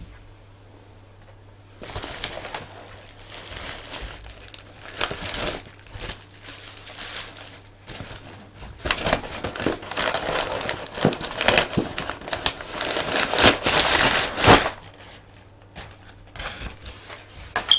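Plastic packing material crinkling and rustling as it is handled, starting about two seconds in and getting louder, then dropping to lighter crinkles near the end.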